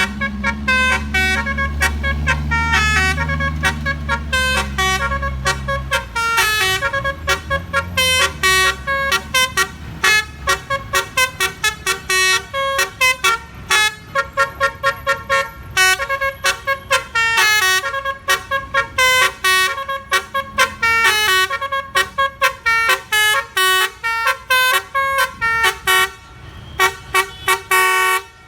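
Indonesian bus 'telolet basuri' multi-trumpet air horn playing a tune in rapid short notes that go on almost without a break. The bus's engine runs low underneath for the first six seconds and then fades.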